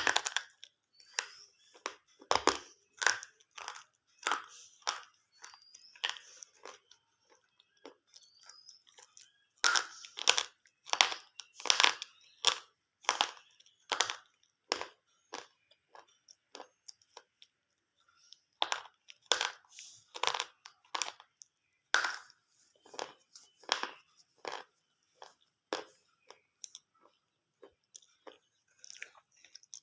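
Slate pencils being bitten and chewed close to the microphone: a run of sharp, irregular crunches, thinning out for a few seconds about halfway through before picking up again.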